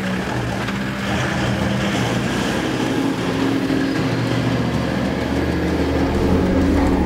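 Toyota LandCruiser 70-series four-wheel drive's engine running under load as it crawls up a steep, eroded sandy track, a steady low drone that grows a little louder about a second in and again near the end.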